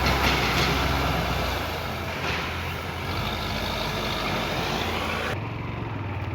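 Heavy vehicle engine running with a steady rushing noise of road and wind; the low engine hum fades somewhat about a second and a half in.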